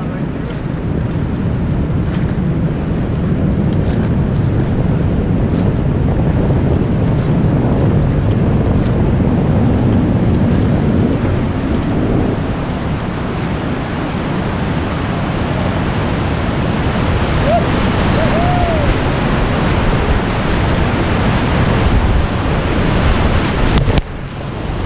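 Steady rushing roar of Hance Rapid's whitewater on the Colorado River, swelling a little over the first several seconds as the raft closes in, mixed with wind buffeting the microphone. About a second before the end the sound drops abruptly.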